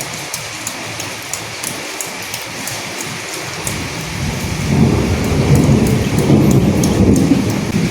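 Steady rain with individual drops ticking. A low roll of thunder builds about four seconds in and rumbles on to the end.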